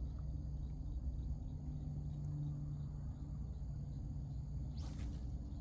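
Crickets chirring steadily over a low, steady rumble, with a brief swish near the end.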